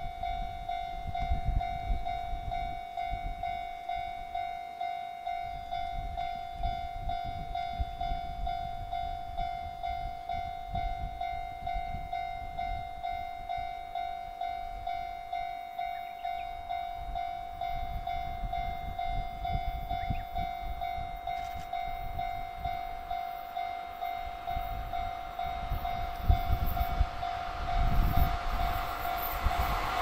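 A Japanese level-crossing warning bell rings without a break, a quick repeating ding on one pitch with overtones. In the last second or two the rumble of an approaching EF66 electric locomotive and its container train rises fast.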